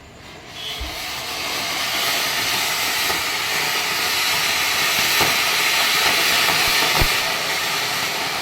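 Colour Koti firework fountain (a ground-level cone) hissing as it sprays sparks. It catches about half a second in and builds to a steady loud hiss, with a couple of faint pops in the second half.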